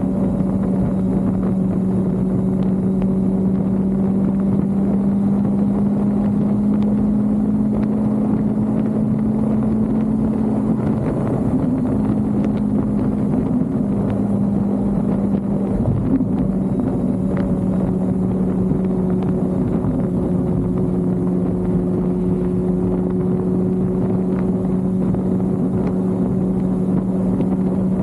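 A vehicle engine running at a steady drone, its pitch shifting briefly around eleven seconds in, with a low bump about sixteen seconds in.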